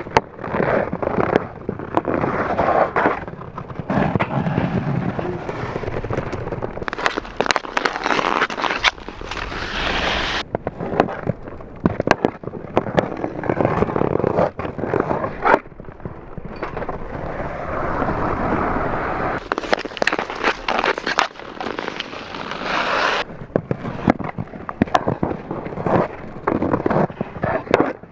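Ice hockey shots on a rink: sticks scraping and slapping on the ice and sharp cracks of pucks being struck and hitting the boards or net, many times over.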